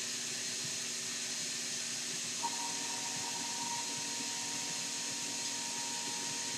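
CNC 6040 router running with its dust-extraction vacuum, a steady hissing whoosh. A short click comes about two and a half seconds in, after which a steady high tone joins.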